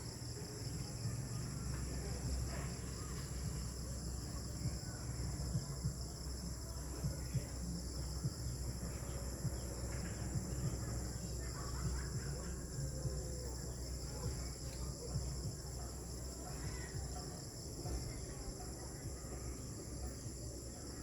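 Evening insect chorus droning steadily at several high, shrill pitches, over a low rumble.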